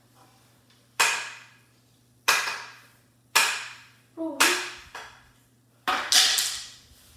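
Six sharp knocks from a hockey stick being struck, about one a second, with the last two close together near the end; each rings off briefly in the room. A short child's vocal sound comes just before the fourth knock.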